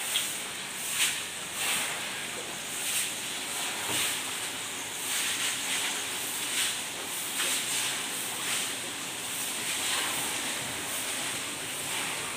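Hot oil sizzling in a large wok of frying tofu, a steady hiss that surges louder every second or so.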